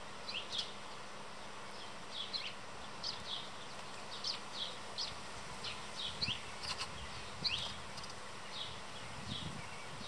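Small songbirds chirping: many short, high, down-slurred chirps at an irregular pace, several a second at times, over a steady hiss.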